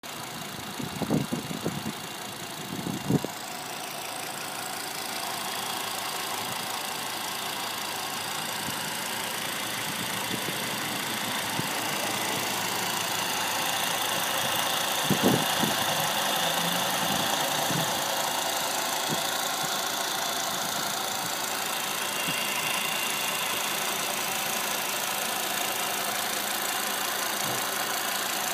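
A 2007 Volvo S60 2.5T's turbocharged 2.5-litre inline-five idling steadily, heard up close in the open engine bay. A few dull thumps come near the start and again about halfway through.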